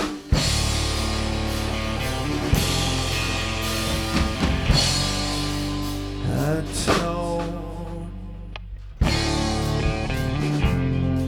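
Rock music with guitar and drum kit, an instrumental stretch with no sung words. The band thins out briefly about eight seconds in, then comes back in hard at about nine seconds.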